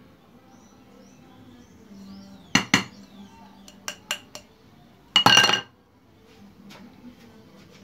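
Hard fishing rod parts being handled and knocking together: a sharp clink about two and a half seconds in, two small clicks near four seconds, then a louder, ringing clatter a little past five seconds.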